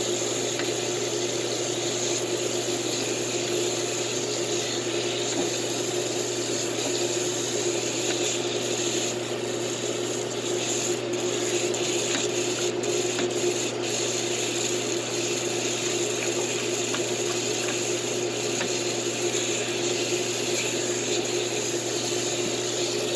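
Water running steadily from a tap or sprayer while soap is rinsed off a pet in the bath.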